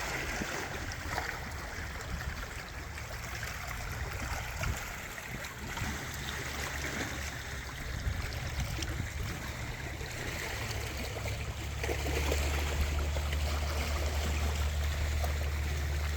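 Seawater lapping and trickling against a floating dock, a steady wash of small waves. About twelve seconds in, a low steady rumble joins it and grows louder.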